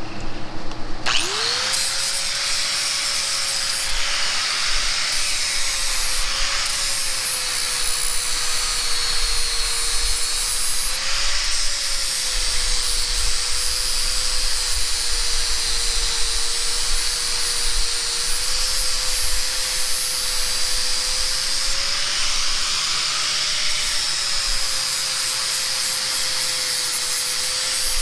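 Grinder spinning up about a second in, then grinding metal steadily, its whine wavering and dipping slightly as it bites into the work.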